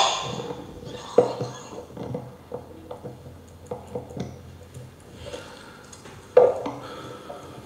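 Handling noise: scattered small knocks and clicks as a table microphone on its stand is moved and papers are handled, with a sharper bump about a second in and another near the end.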